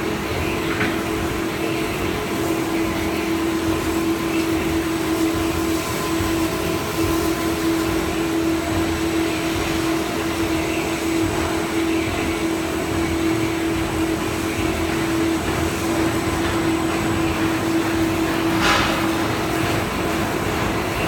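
Industrial coating machine running steadily in production: a constant mechanical hum with one strong steady tone over a noisy whir, and a brief sharp tick near the end.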